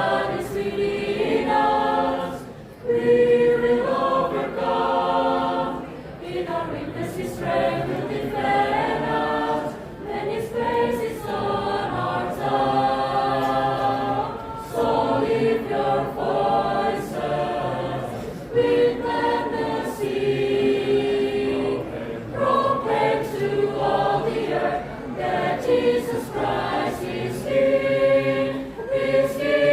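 Mixed church choir singing a hymn in parts, unaccompanied, the sustained chords moving from phrase to phrase.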